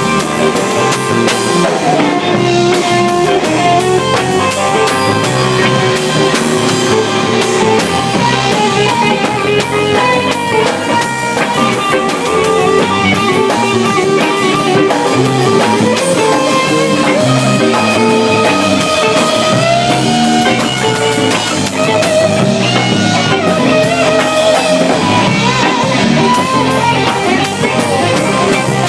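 Live rock band playing an instrumental passage: guitar over drum kit, with no singing.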